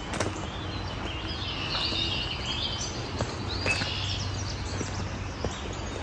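Birds singing in woodland over a steady low background noise, with a few footsteps on a dirt trail. A burst of bird song comes about a second in, and a single rising-and-falling bird note near the middle.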